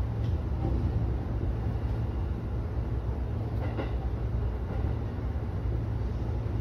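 Electric commuter train rolling into a station platform, heard from inside the driver's cab: a steady low rumble from the running gear, with one faint click a little under four seconds in.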